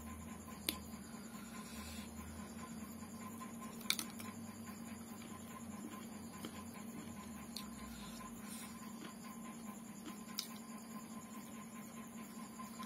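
Quiet eating by hand: fingers mixing rice and curry on a plate, and chewing, with four short sharp clicks spread through it, over a steady hum.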